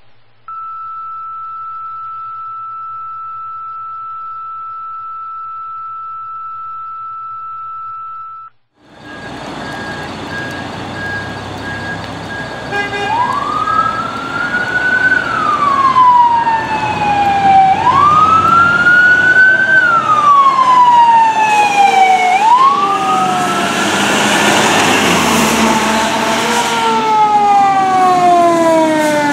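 A steady high tone for about eight seconds, then a brief gap and wet road and traffic noise. Fire apparatus sirens from a responding Pierce tiller ladder truck and Pierce pumper wind up and down in slow cycles of about four to five seconds, growing louder toward the end.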